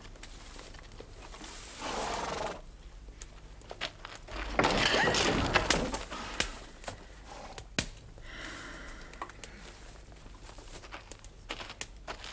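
Footsteps and movement: scattered scuffs and knocks, with a louder rustling noise lasting about a second and a half, beginning about four and a half seconds in.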